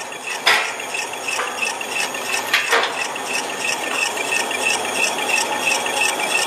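Snack-extrusion line machinery running steadily, with a high squeak repeating evenly several times a second and a couple of short knocks in the first three seconds.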